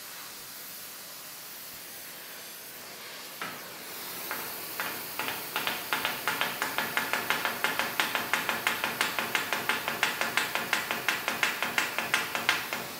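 Gas torch hissing steadily. From about four seconds in, a hand hammer strikes a red-hot steel rivet in quick, even blows, about four to five a second, heading it over while the torch keeps it hot.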